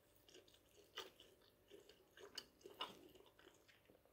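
Faint close-up chewing of a bite of freshly baked leek börek, flaky pastry with a crisp baked top, with a few short crackly clicks.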